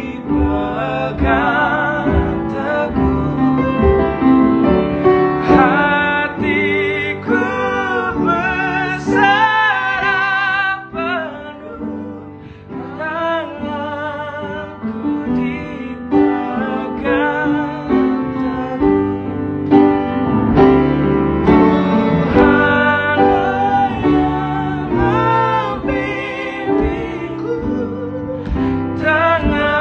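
Men singing a gospel song as a duet, holding long notes with vibrato, over a steady piano accompaniment.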